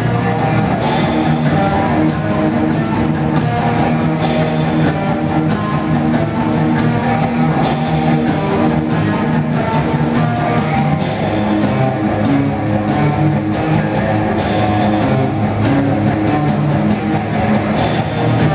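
A live rock band playing: distorted electric guitar, electric bass and drum kit, with a cymbal crash roughly every three and a half seconds.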